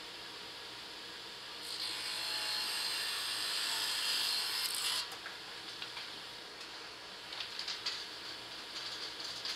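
Table saw cutting a small block of HDPE plastic: a steady hissing cut of about three seconds that stops abruptly, followed by light clicks and taps as the cut piece is handled.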